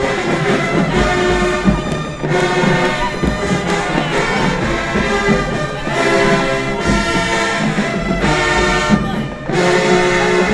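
High school marching band playing loud sustained brass chords in phrases of a couple of seconds each, with trombones and trumpets prominent.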